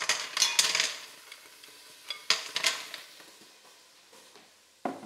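Live mussels tipped into a hot deep pan, their shells clattering and rattling against the metal in a burst over the first second and again a little after two seconds, with a short knock near the end.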